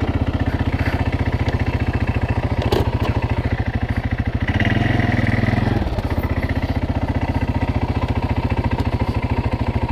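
2021 CFMoto CForce 600 ATV's single-cylinder engine running steadily under way, with a swell of throttle lasting about a second around the middle and a single sharp click a few seconds in.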